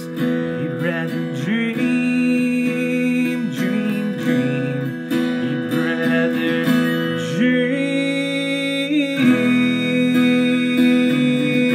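Acoustic guitar strummed in chords, with a man singing along. The chord changes about nine seconds in.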